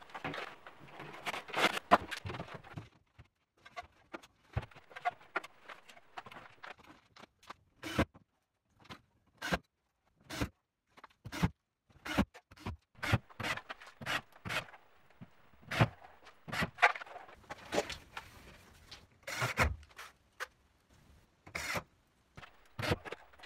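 Drywall work: a gypsum board being handled and screwed to metal studs with a cordless drill-driver, giving many short knocks and clicks with brief runs of the driver.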